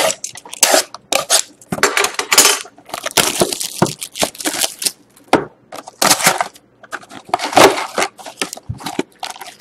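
Plastic shrink wrap crinkling and tearing as it is stripped off a sealed cardboard trading-card box, a run of irregular sharp crackles and rustles. Near the end the box's cardboard lid flap is pulled open.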